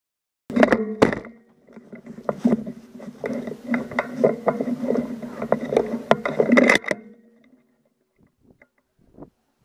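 Two sharp knocks, then several seconds of rattling and knocking against the wooden boards of a plywood shooting house, stopping about seven seconds in and leaving a few faint ticks.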